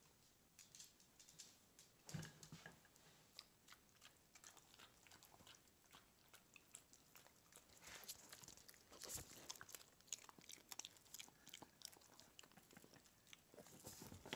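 Small dog chewing and crunching pizza: faint, irregular clicks and crunches, with slightly louder ones about two seconds and nine seconds in.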